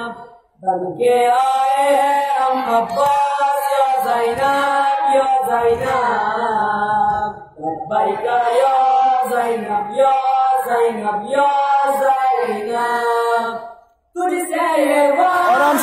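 A boy's voice chanting an Urdu noha, a mourning lament, into a microphone. It comes in long held phrases, with brief pauses about half a second in, at about seven and a half seconds, and near the end.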